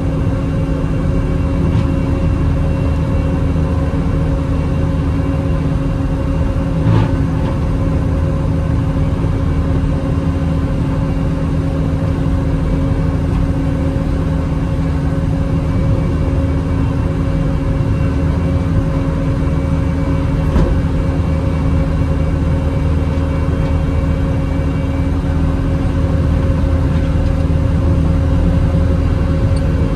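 Bobcat T650 skid steer's diesel engine running steadily under load, driving a Bobcat Brushcat 72-inch rotary cutter as it mows grass. A brief knock about seven seconds in.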